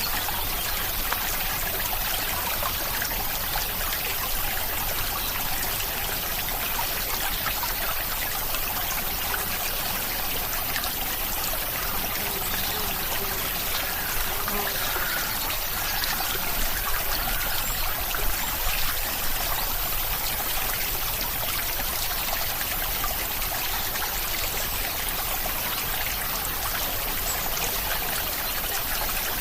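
Steady rain with water trickling and running, an even hiss that holds at one level throughout.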